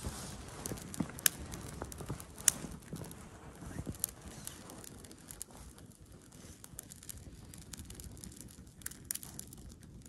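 Small fire of damp pine branches crackling, with sharp snaps in the first few seconds, and twigs rustling as they are fed in by hand. The crackling thins out after about five seconds.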